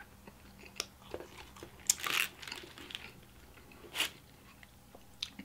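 Close-up chewing of pizza: soft mouth clicks and crunches of crust, with a louder stretch of crunching about two seconds in. A sharp crackle about four seconds in as a slice is lifted off the paper-lined box.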